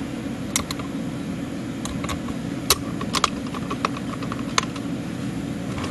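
Light, irregular clicks and taps of brass clock-movement parts, about nine of them, as the plate of a Schatz 400-day anniversary clock movement is fitted over the wheel pivots. A steady low hum runs underneath.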